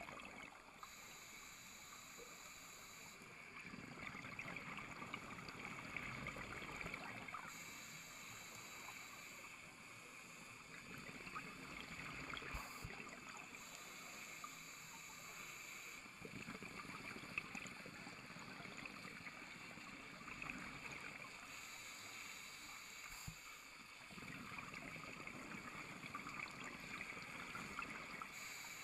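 Scuba diver's regulator breathing heard underwater through a camera housing: a hissy rush of exhaled bubbles about every six to seven seconds over a faint, steady, muffled underwater hiss.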